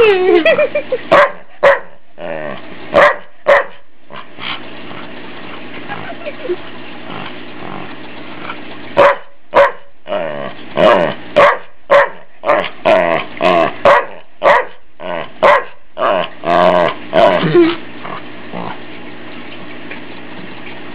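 Australian shepherd barking and growling in short bursts in play: a few in the first seconds, then a long run of them from about nine to eighteen seconds in.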